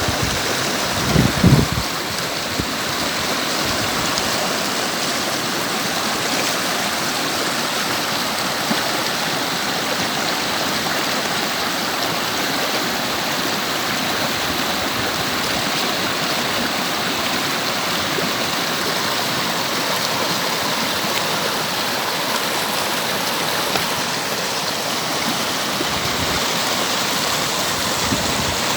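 River water rushing steadily over rocks, an even continuous wash. There is a brief low rumble about a second in.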